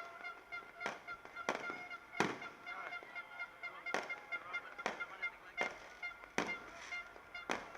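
Fireworks bursting in about eight sharp bangs, over a horn sounding one steady pitch in short repeated blasts.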